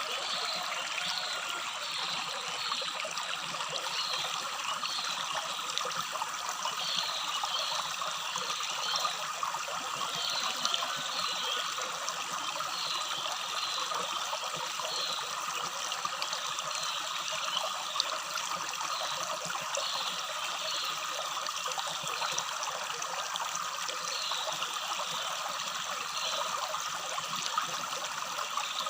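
Small rocky stream babbling steadily. Above the water a bird repeats short high chirps in runs, again and again.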